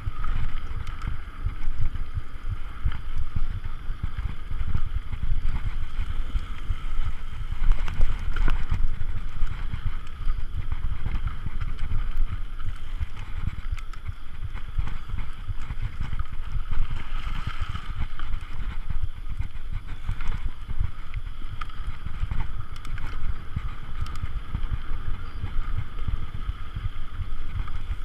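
Mountain bike ridden over a dirt trail: a continuous rumble of wind buffeting the microphone and tyres running over the ground, with frequent small knocks and rattles from bumps.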